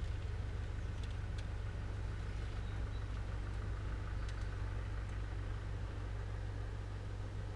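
A steady low hum, with a few faint light clicks as small rig components are handled.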